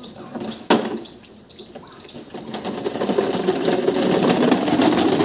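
Plastic wheels of a child's ride-on toy car rattling and rumbling over wet brick paving as it is pushed along, growing louder over the last couple of seconds. A sharp knock comes about a second in.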